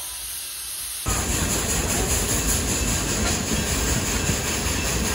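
A 1907 Baldwin steam locomotive hisses as it stands venting steam. About a second in, this gives way to the louder, steady running noise of riding in a passenger car behind it as the train rolls along the track.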